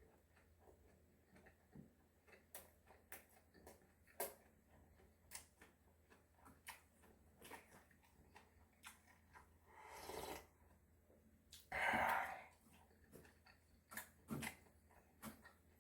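Close-miked eating: soft chewing with irregular wet mouth clicks, a longer noisy swell about ten seconds in and a louder short burst about two seconds later.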